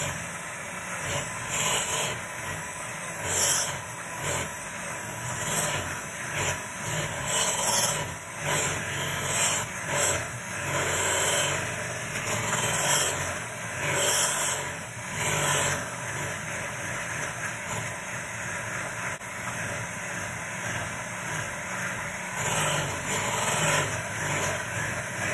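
Electric hand mixer running, its beaters whipping cream cheese in a bowl; the steady motor noise swells and falls every second or two.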